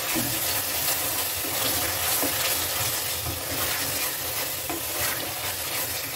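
A wooden spatula stirring thick mutton masala in a pressure cooker, scraping through the curry, over the steady sizzle of the masala cooking on the gas flame.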